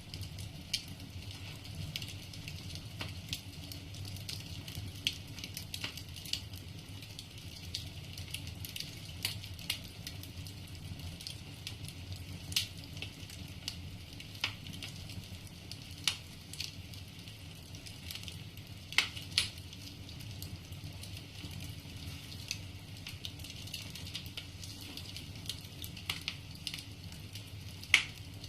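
Firewood burning in a fireplace, crackling: a steady hiss broken by irregular sharp pops and snaps, with a few louder pops now and then.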